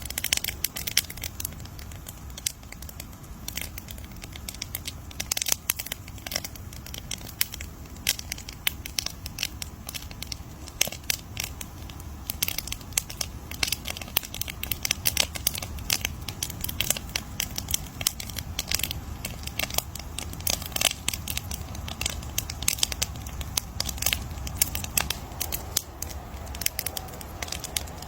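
Wood fire crackling: a steady stream of irregular sharp pops and snaps over a low rumble of burning.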